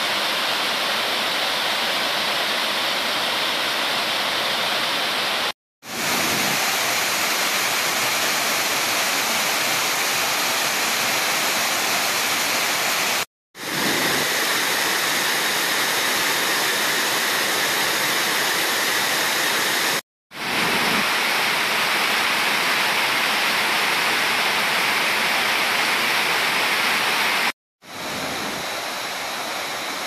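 Waterfalls pouring over rocks into a mountain stream: a steady rush of falling water, broken by four brief silent gaps.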